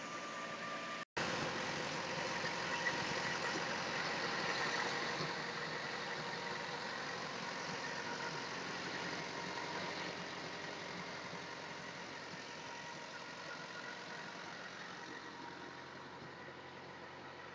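Diesel-driven truck refrigeration unit running steadily: its small diesel engine turns the belt-driven piston compressor, freshly charged with R404A. The sound cuts out for a moment about a second in and grows slightly fainter toward the end.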